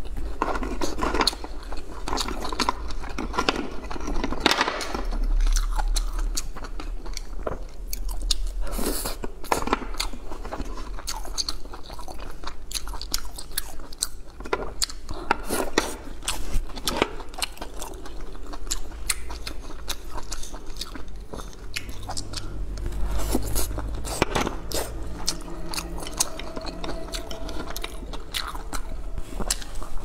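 Chewing and biting of garlic-topped oysters eaten from the half shell, with many sharp clicks of chopsticks against the shells.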